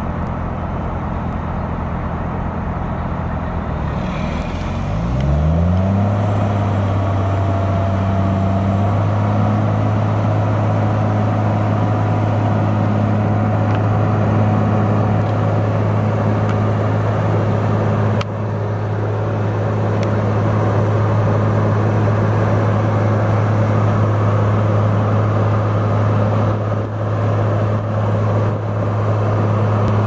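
Diesel engine of a Junttan PM 25H crawler pile-driving rig idling, then revving up about five seconds in and holding a steady higher speed, with no hammer blows.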